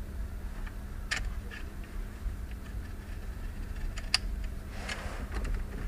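Scattered light clicks and taps as car heater control unit housings are handled, with a short rustle near the end, over a steady low hum.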